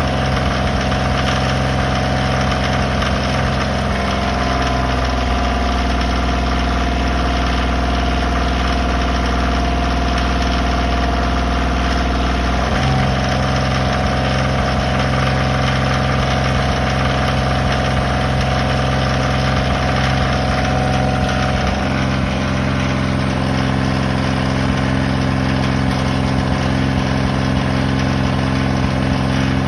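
A Kioti engine running steadily, its speed changing a few times. It has the knocking sound in question, which a dealership service manager calls normal for Kioti engines and a private buyer says is not normal.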